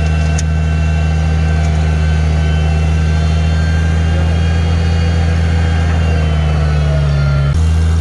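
Farmall 756 tractor's six-cylinder engine running steadily under load as it drags a rear blade through deep snow. Its pitch sags a little just before an abrupt change about seven and a half seconds in.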